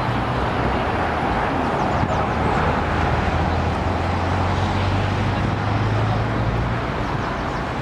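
City street traffic: a motor vehicle's engine running close by with a low, steady hum that swells in the middle and eases near the end, over a wash of road noise.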